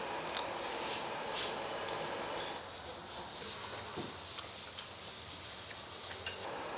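Beef sizzling on a tabletop barbecue grill, a steady hiss with a few light clicks of metal utensils.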